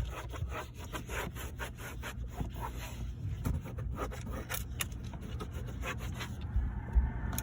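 A cloth rag rubbing back and forth over a car's interior trim, wiping off dust in quick repeated strokes that thin out toward the end.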